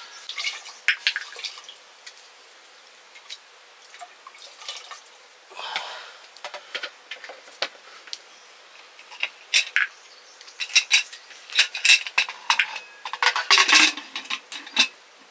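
Scattered clinks and knocks of pots and utensils, with short splashes of liquid in a few spots, heaviest a little before the end.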